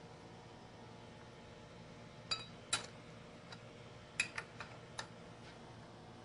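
Several light metallic clinks and ticks, in an irregular cluster about two to five seconds in, as tools or metal parts are handled at a metal lathe. A faint steady hum sits under them.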